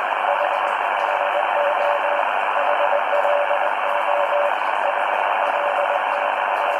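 Morse code (CW) received on an ATS-20 shortwave receiver in upper-sideband mode: a single tone of about 600 Hz keyed on and off in short and long elements over a steady hiss of band noise. The keying stops a little past halfway, leaving only the hiss.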